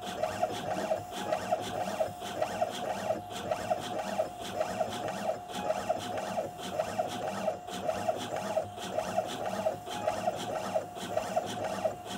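Home-built coil winding machine running, turning a motorcycle stator to wind fine copper wire onto its ignition source coil. A steady mid-pitched whine with regular ticks about three times a second.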